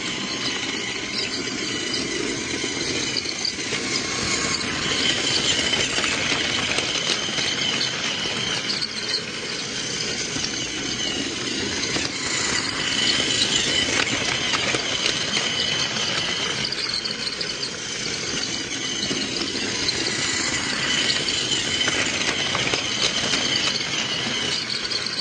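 Motorised toy train running along its track, its wheels and gears rattling steadily, with a high squeal that rises and fades several times.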